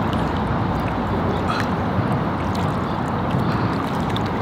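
Shallow river water sloshing and lapping around people's hands and legs as a large white sturgeon is released, over a steady rushing noise.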